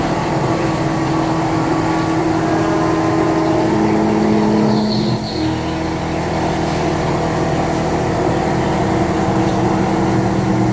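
CNC milling machine running steadily while machining a sheet-metal forming die, giving a continuous hum of several steady tones. An added tone comes in about four seconds in, followed by a brief dip about a second later.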